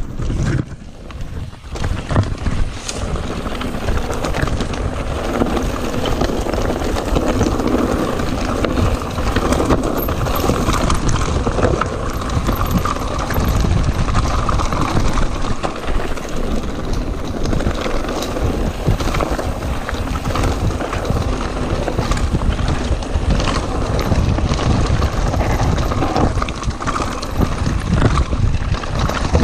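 Mountain bike rolling fast down a loose, rocky dirt trail: tyres crunching over stones and the bike rattling and knocking over the bumps, with wind noise on the action-camera microphone.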